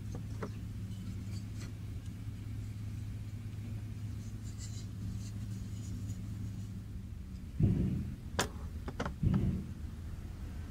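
A low, steady rumble, then near the end a few sharp wooden knocks and clatters as the folding X-shaped wooden stand is lifted and handled on the table.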